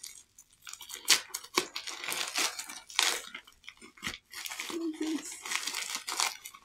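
Packaging crinkling and tearing as a parcel is unwrapped, in irregular rustles and rips.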